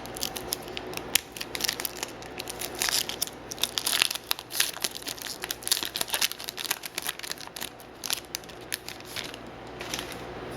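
A foil trading-card pack being torn open and crinkled by hand, with many sharp crackles that come thickest in the middle.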